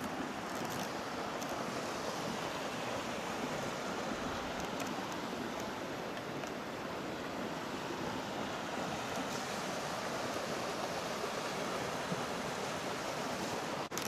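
Mountain river rushing over a rocky bed in a gorge: a steady, even rush of water.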